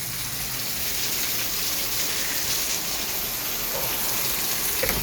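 Heavy thunderstorm rain pouring down steadily, an even hiss of downpour on hard surfaces.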